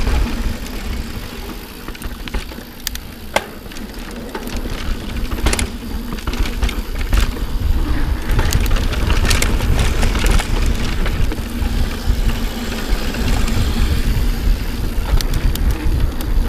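Mountain bike on a fast descent down a dirt singletrack: wind buffeting the camera microphone over the rolling of tyres on dirt, with the bike rattling and clattering in sharp clicks and knocks over bumps. It gets louder about halfway through as the speed picks up.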